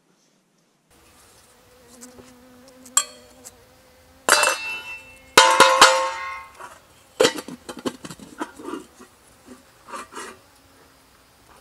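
Metal cooking pot and its lid clanking together. Two loud clangs about four and five seconds in ring on with a bell-like tone, among lighter knocks and scrapes, and a faint steady buzz underneath early on.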